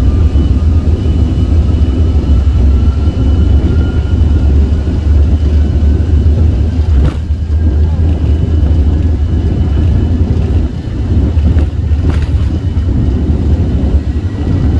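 Cabin sound of an Embraer ERJ145 regional jet moving on the ground: a loud, steady, deep rumble with a thin turbofan whine that rises slowly in pitch. Two brief knocks come partway through.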